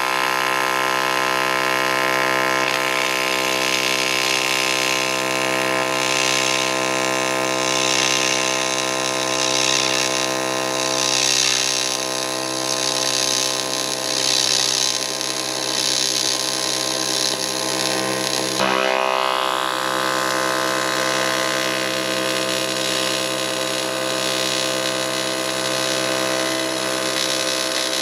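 AC TIG welding arc on aluminum tubing, a steady buzz made of many even tones. About two-thirds of the way through it breaks briefly and the pitch shifts, then the buzz carries on.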